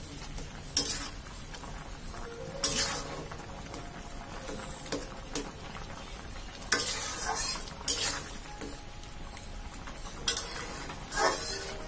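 A utensil stirring a simmering curry in a pan, with a steady low sizzle and several short scraping knocks against the pan at irregular intervals.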